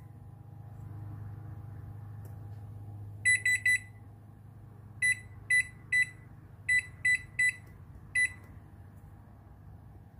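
Whirlpool oven touch control panel beeping once with each button press as the bake temperature is stepped down: short high beeps, a quick run of three about a third of the way in, then seven more spaced roughly half a second apart.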